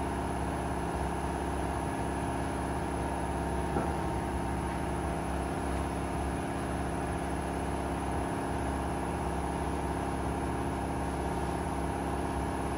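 A steady mechanical hum of several held tones, as of a machine running in a workshop, with one faint tick about four seconds in.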